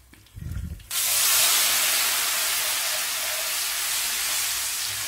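Water poured into a kadai of hot sesame-oil tempering bursts into a loud hissing sizzle about a second in, after a brief low thud. The sizzle holds steady, easing slightly as the oil and water bubble together.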